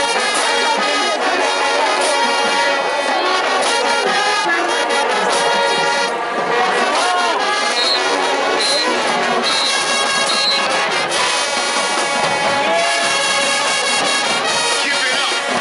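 High school marching band's brass section (trumpets, trombones and sousaphones) playing loudly and continuously.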